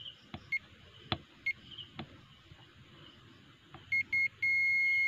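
Multimeter continuity beeper sounding as the probes are pressed to the flashlight's head and body: a few light taps of the probe tips and short beeps, then a steady high beep from about four and a half seconds in. The beep shows continuity: no loose contact.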